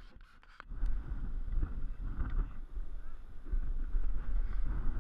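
Wind rumbling on the camera microphone: a steady low rumble that drops out for about half a second at the start.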